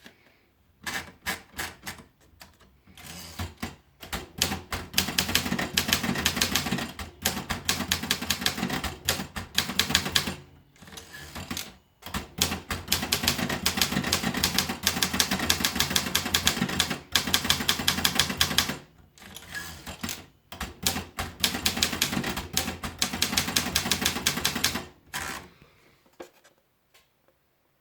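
Optima Elite manual typewriter being typed on: rapid key strikes in three long runs separated by brief pauses, stopping a couple of seconds before the end.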